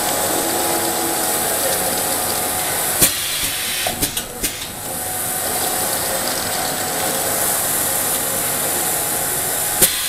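Cup crimping machine running with a steady hiss, with a few sharp clicks about three seconds in, around four seconds and near the end.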